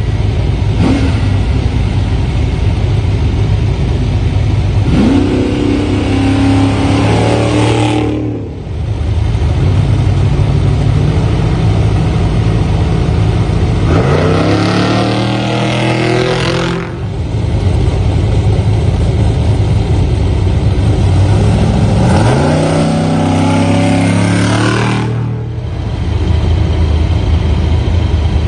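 Off-road race trucks revving hard and accelerating away from the start line one after another, with a loud, steady engine rumble. The engine pitch climbs in three rising launches.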